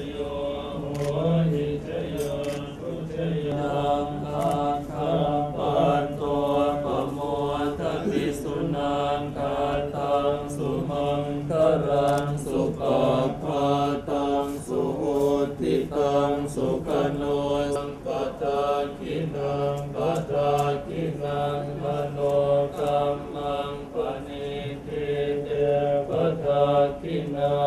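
Group of Theravada Buddhist monks chanting a Pali blessing in unison through a microphone, a steady run of syllables held on one low pitch.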